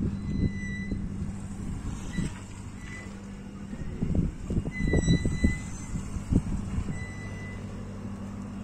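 Tugboat's onboard machinery humming steadily with a low, even drone. Several thumps come between about four and six and a half seconds in, and short high beeping tones sound now and then.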